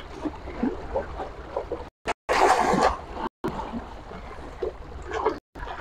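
Wind rumbling on the microphone over choppy sea water splashing, with a louder rush of splashing noise lasting under a second about two seconds in. The sound drops out completely for a moment a few times.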